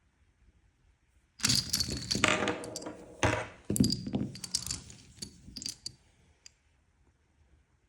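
Loose rifle cartridges clattering and clinking together. A dense rattle starts about a second and a half in and thins out into a few separate clinks before stopping.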